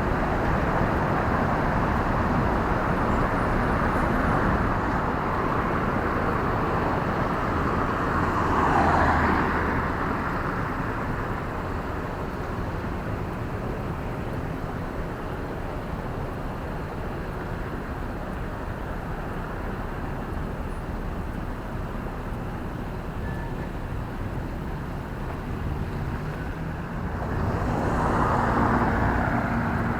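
City street traffic: a steady hum of road noise, with a vehicle passing close by about a third of the way through and another near the end.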